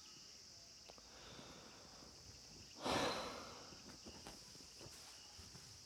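A man's heavy sigh about three seconds in, a single breathy exhale that starts suddenly and fades over about a second. Under it, a faint, steady high-pitched drone of insects.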